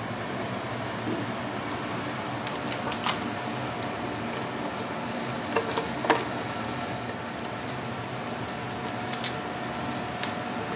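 Snow crab shell cracking and snapping in scattered sharp clicks as the legs are twisted and pulled from the body by hand, over a steady hum of a fan.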